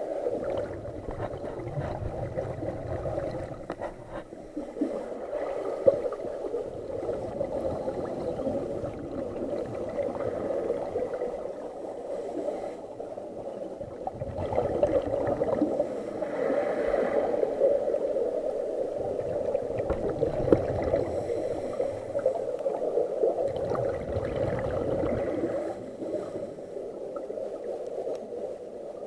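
Underwater sound heard through a waterproof camera housing: a steady muffled hum of the water, with gurgling rumbles of scuba exhaust bubbles swelling and fading every few seconds.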